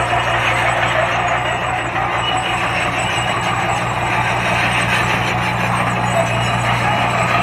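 Heavy earthmoving machinery running steadily: a diesel engine's low, even hum under a continuous wash of mechanical noise.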